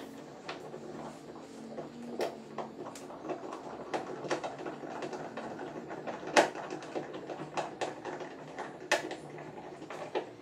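A mounting screw being turned in by hand into a plastic kayak deck: irregular clicks and scrapes from the tool and screw, the loudest about six seconds in.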